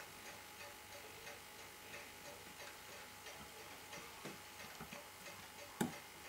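Faint, steady ticking of a mechanical timepiece, with one sharp click near the end as steel tweezers work on a watch movement.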